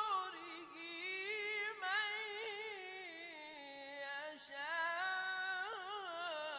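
A single voice in Arabic Quranic recitation, chanting long melismatic lines with wavering ornaments that slide down in pitch over the first few seconds and climb again near the end.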